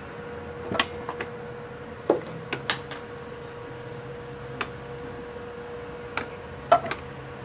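Clicks and knocks, about nine scattered irregularly, the loudest about two seconds in and near the end, from handling a Makita cordless slide compound mitre saw whose motor is not running: its head and sliding, bevel-tilted arm are being moved and set by hand. Under them runs a faint steady hum.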